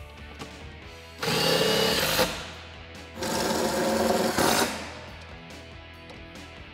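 Cordless impact driver running in two bursts of about a second each, tightening the bolts that hold a steel tire carrier to the tailgate.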